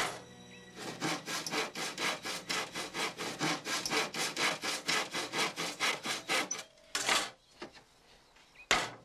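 Handsaw cutting through a wooden board with fast, even back-and-forth strokes, about five a second. The strokes stop about two-thirds of the way in, and two single strokes follow.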